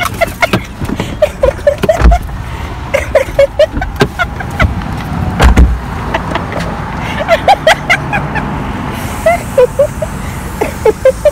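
A car driving, with steady road noise, many short pitched chirps in clusters, and two heavy low thumps about two and five and a half seconds in.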